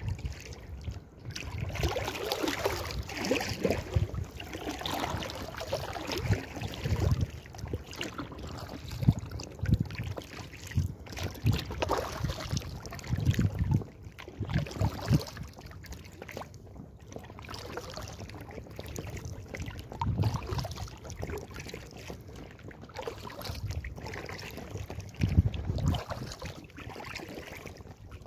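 Paddling an inflatable kayak: paddle strokes splashing, with water gurgling and trickling along the hull. Irregular low thumps come every second or two, and there is some wind on the microphone.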